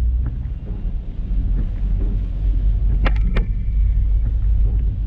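Low, steady rumble of a moving car's engine and tyres heard from inside the car, with two short clicks about three seconds in.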